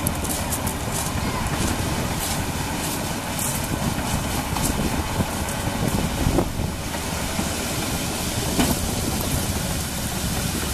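Diesel engine of a tracked RNLI lifeboat launch tractor running steadily as it moves the lifeboat on its carriage across the shingle, with a few short crunches from the stones.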